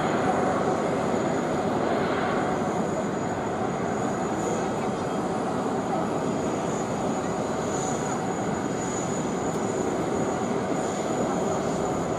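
Jet engines of a Singapore Airlines Airbus A330 at low taxi thrust: a steady rushing with a faint high whine.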